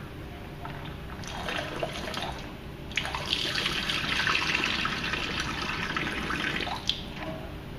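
Water pouring in a thin stream from a plastic fish-shipping bag into a stainless steel sink drain, a steady splashing that grows louder and fuller from about three seconds in and eases off near the end with a click.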